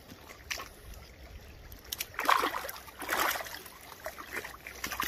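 A stingray flapping its wings in shallow water, splashing in two short bursts about two and three seconds in, with quieter water sounds between.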